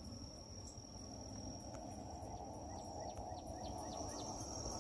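Faint outdoor ambience: insects trilling in one steady high-pitched note over a low background hum, with a few faint short chirps.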